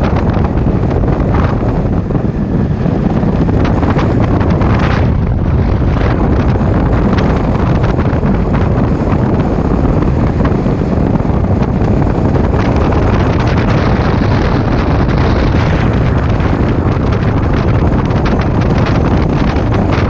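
Heavy wind noise buffeting the microphone of a camera mounted on a moving motorcycle, loud and steady throughout.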